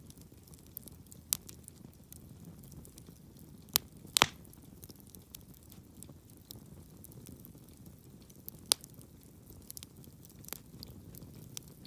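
Wood campfire crackling over a low steady rumble, with scattered sharp pops and snaps, the loudest a quick double snap about four seconds in.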